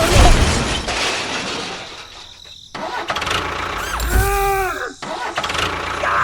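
Engine sounds in short bursts broken by abrupt cuts, with a brief pitched tone that bends up and back down about four seconds in.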